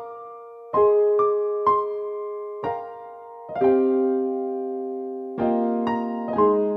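Slow background piano music: single notes and chords struck every half second to a second or so, each left to ring and fade.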